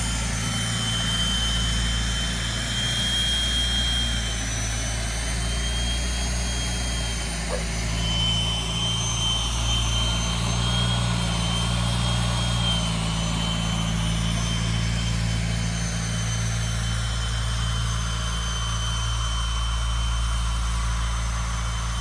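Farm tractor engine running steadily while it pulls a two-row corn planter through a field, with a steady high whine that wavers slightly in pitch.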